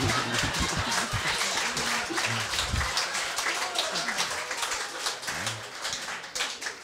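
Live audience laughing and clapping after a joke, the applause thinning out and dying away near the end.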